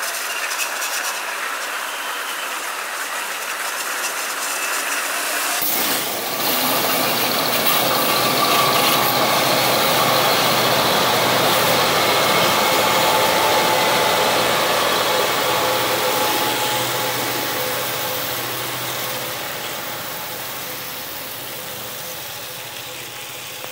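Loaded freight wagons rolling past with steady wheel noise, then from about six seconds in the deeper rumble of three GM G22UC diesel helper locomotives pushing at the rear of the train, loudest midway and fading away toward the end.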